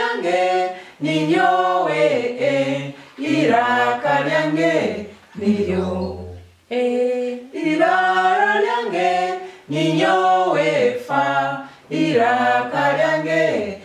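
A small group of men and women singing a letter-sound song in Runyoro-Rutoro without accompaniment, in held, stepping notes; the same phrase is sung twice, with a short break between.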